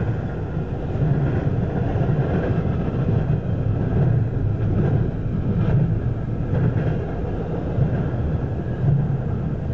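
Double-stack intermodal freight cars rolling past: a steady low rumble of steel wheels on rail that swells roughly once a second as the wheel sets go by, with a few faint clanks.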